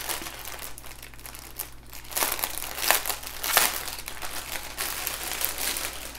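Clear plastic packaging crinkling as hands handle and lay out a plastic-wrapped bundle of small bags of diamond-painting drills, with a few louder crackles between about two and four seconds in.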